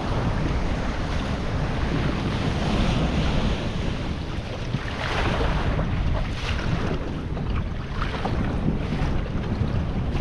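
Strong wind buffeting the microphone over a choppy sea, with waves washing and surging, one surge swelling about five seconds in.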